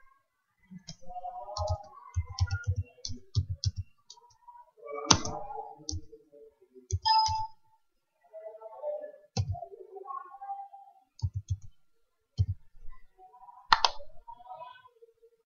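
Computer keyboard being typed on: key clicks in short, irregular runs, with a sharper single click near the end.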